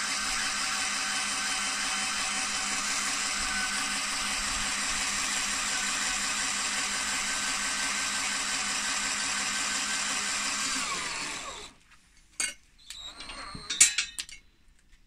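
Battery drill spinning a power-tool motor armature while a hand file is held against its copper commutator: a steady whine with a scraping hiss, the file taking off corrosion and carbon-brush tracks. About eleven seconds in the drill stops and the whine winds down, followed by a few knocks as the armature and file are handled, one sharp knock near the end being the loudest.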